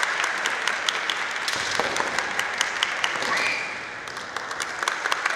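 Audience applause: many people clapping, thinning out briefly about four seconds in.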